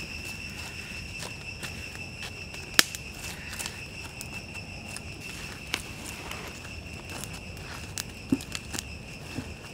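Wood fire crackling and popping, with sharp snaps about three seconds in and again near the end, over a steady high-pitched insect trill.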